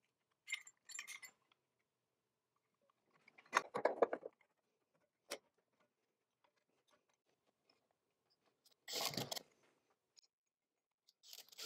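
Clinks and knocks of electrical conduit and an LB conduit body being handled and pushed together, in a few short bursts: the loudest about four seconds in, a single sharp click a second later, and another cluster about nine seconds in.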